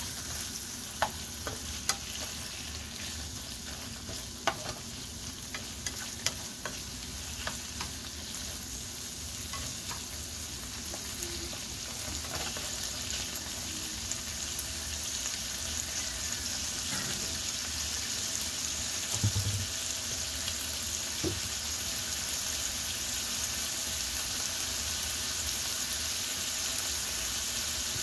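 Chopped vegetables and smoked turkey sizzling in a nonstick frying pan, a steady hiss. In the first several seconds a spatula clicks and scrapes against the pan as the food is stirred. The sizzle grows a little louder toward the end.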